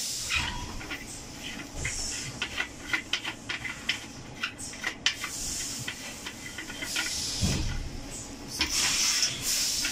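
Cloth rubbing over the stainless-steel lid of a benchtop autoclave in repeated hissing swishes, the strongest near the end, with many small clicks and taps from handling the lid.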